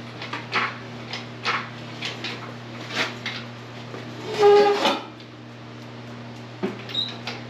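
Hydraulic engine hoist being pumped to lift an LS V8 with its transmission attached: a series of short clanks and creaks about every half second. About halfway through there is one short, loud squeak.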